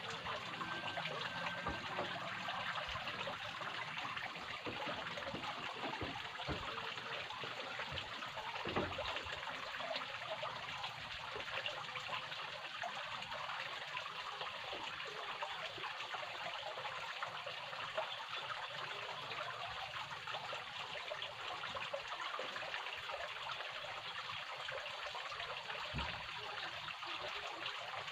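Steady trickle of running water, an even splashing hiss, with a faint low knock about nine seconds in and another near the end.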